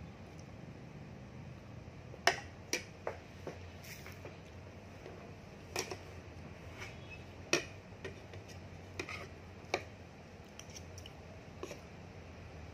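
A metal fork clinking and scraping on a plate while eating: about nine sharp, irregular clicks over a steady low hum.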